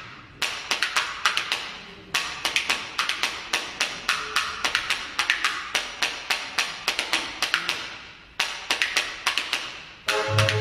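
Parade band's marching drums playing a rapid rhythm on their own, in phrases of sharp strokes. The band's melody instruments come back in near the end.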